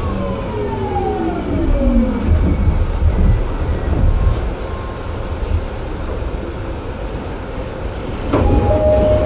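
Early unrenewed Mitsubishi GTO VVVF inverter whining on a 209-1000 series motor car, its several tones falling in pitch as the train brakes. The whine dies out after about two seconds, leaving wheel and track rumble as the train slows. About a second before the end, a sudden noise is followed by a steady two-note tone.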